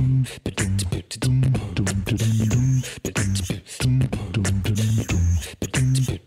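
Upbeat intro music with a punchy beatbox-style beat over a bouncy bass line.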